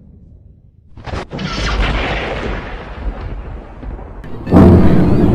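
A thunderclap: a sharp crack about a second in, then a long rumble that slowly fades. Near the end a much louder sound cuts in abruptly: a steady droning, horn-like tone over a low rumble.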